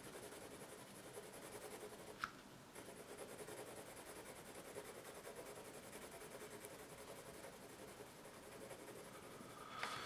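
Mechanical pencil with soft 4B graphite lead shading back and forth on lined paper: a faint, rhythmic scratching of pencil strokes, with one light tick about two seconds in.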